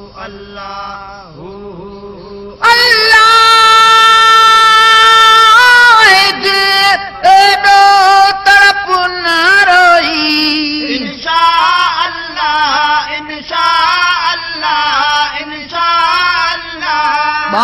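A solo voice singing a devotional song (naat) about Madina. It holds one long note from about three seconds in, then moves into ornamented, wavering phrases.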